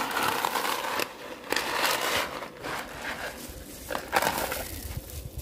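Thin dry noodles being broken up by hand and shaken out of a cardboard box: a dry crackling and rustling that comes in bursts, heaviest in the first two seconds and again briefly a little after four seconds.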